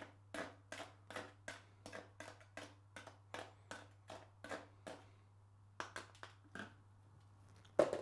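Quick, even taps, about three a second, as powdered supplement is knocked through a funnel into a bottle. They stop about five seconds in, come back as a few quicker taps, and one louder knock follows near the end.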